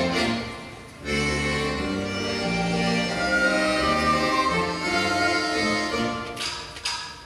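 Russian folk dance music from an instrumental ensemble led by accordion, with strings. The music drops away briefly in the first second and comes back in full about a second in. Two short sharp accents sound near the end.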